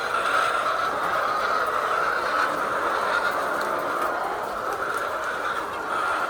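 Steady din of a large flock of laying hens in a poultry house, many birds calling at once in a continuous, even wash of sound.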